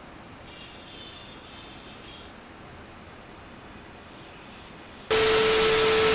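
Faint room noise, then about five seconds in a loud static-like hiss with a steady hum tone cuts in suddenly and holds at an even level.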